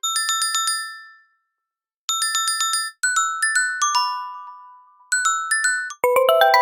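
Electronic phone ringtone with bright, chime-like mallet tones: short bursts of rapid repeated notes separated by pauses, with a falling run of notes about halfway through. Near the end a different, lower ringtone starts.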